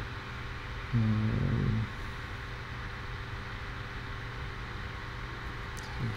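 Steady low background hiss with a faint hum. About a second in, a man's voice gives a short hummed "mm" lasting under a second, and there is another brief voice sound at the very end.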